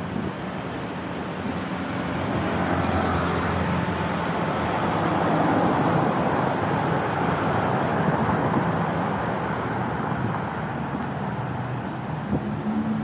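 Road traffic: motor vehicles running past on a city street, with a swell of engine and tyre noise in the middle as one passes close by.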